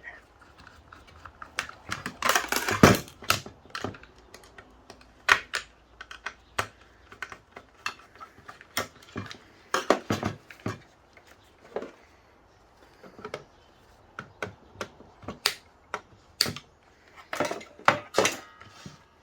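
Irregular sharp metallic clicks and clinks of a screwdriver working small flathead screws out of an electrical power box, with a few louder clattering clusters.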